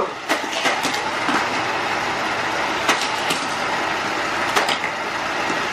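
Hot Wheels Track Builder two-way booster running steadily, its motorised wheels whirring, with die-cast toy cars clicking through it and along the plastic track a few times.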